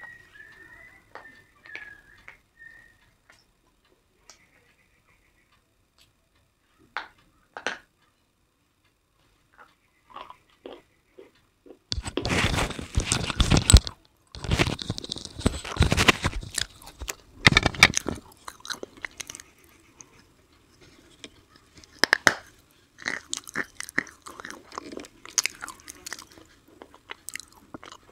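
Close-up crunching and chewing of hard, brittle pieces of a grey slate bar. It starts with a few small scattered cracks, then a burst of loud crunching begins about twelve seconds in and lasts several seconds. Quicker crisp crackles follow near the end.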